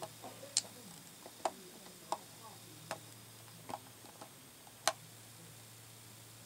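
Irregular sharp clicks and taps of small hard pieces being handled and fitted into a toy popcorn machine, about seven in all, the loudest about five seconds in.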